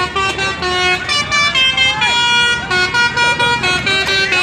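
Indonesian 'telolet' basuri musical bus horn playing a fast tune: several horn tones sounding together, stepping from note to note every fraction of a second.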